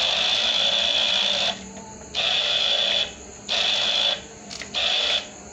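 Toy RC car's small electric motor and gears whirring at full throttle. The whine cuts out about a second and a half in, then comes back in three short spurts of under a second each as the throttle is blipped on and off.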